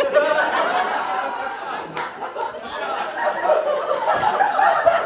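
Audience laughing: many voices overlapping in a steady wash of laughter.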